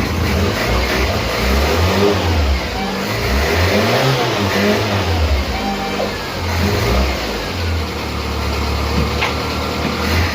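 1986 Ford Escort Mk3's four-cylinder petrol engine running, its speed rising and falling for a few seconds in the middle, then holding steadier.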